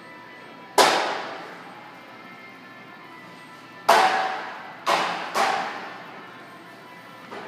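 Loud bangs of heavy objects striking hard, four of them (one about a second in, then three close together past the middle), each ringing out in a long echo.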